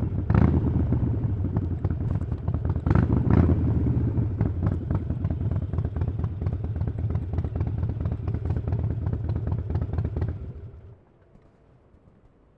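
Harley-Davidson Iron 883's air-cooled V-twin running through a Vance & Hines aftermarket exhaust. It is revved briefly about half a second in and again about three seconds in, then idles with an uneven, lumpy beat. The engine is shut off about ten and a half seconds in.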